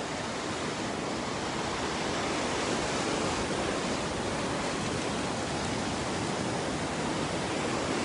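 Sea surf washing onto a rocky shore, a steady rush of noise without a break.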